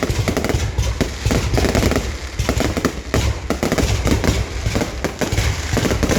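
New Year's Eve fireworks going off in a dense, continuous barrage of overlapping bangs and pops, many each second, with a low rumble beneath.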